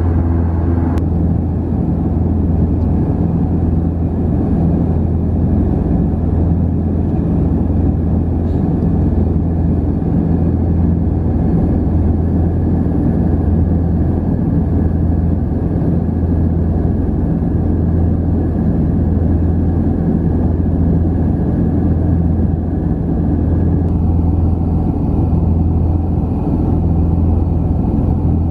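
Cabin drone of an Antonov An-24RV's twin Ivchenko AI-24 turboprop engines and propellers in flight: a loud, steady hum with a strong low propeller tone over a rumble. Some of the higher tones drop away about a second in.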